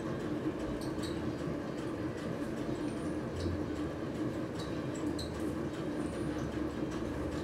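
Steady background noise: a constant low hum and hiss, with faint short high chirps or squeaks dotted through it.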